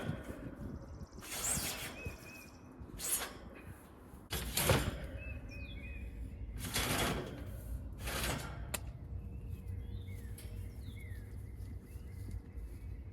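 About five short sliding, scraping noises, roughly a second and a half apart, from parts being handled as a Trane heat pump's outdoor unit is taken apart, with small birds chirping in the background.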